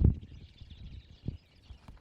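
A dull, heavy thump at the start, then a fainter knock just over a second later, over a faint steady high hiss of background.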